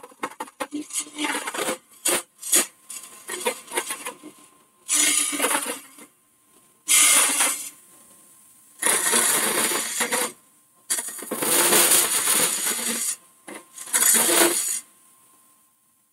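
Hollowing tool cutting inside a spinning holm oak hollow form on a wood lathe, heard as scraping cuts. Quick short strokes come first, then about five longer cuts of one to two seconds each with brief pauses between.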